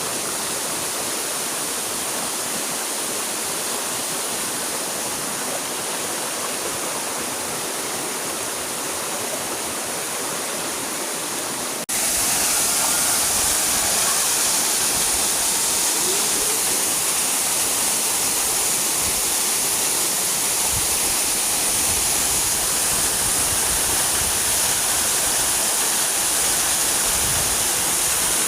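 Waterfall: a steady rush of falling water. About twelve seconds in it cuts suddenly to a louder, fuller rush with more low rumble.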